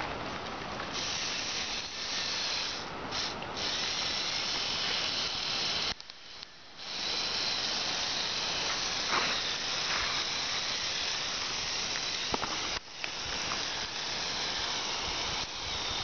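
Remote-controlled LEGO off-road truck driving over grass and rocks: its small electric drive motors and gear train whirring steadily. The whirr cuts out briefly about six seconds in and dips again near thirteen seconds.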